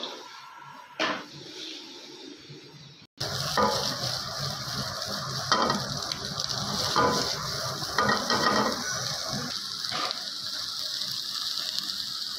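Knife cutting salad vegetables on a cutting board: short crunchy strokes, roughly one every second or so, over a steady hiss. The sound drops out briefly about three seconds in, and the background changes abruptly there.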